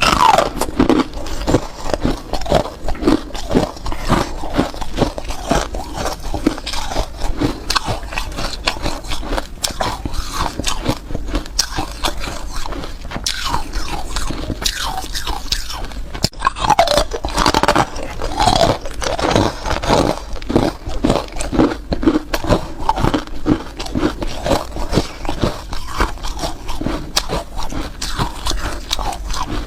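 Hard ice being bitten and chewed: dense, continuous crunching and cracking of ice between the teeth.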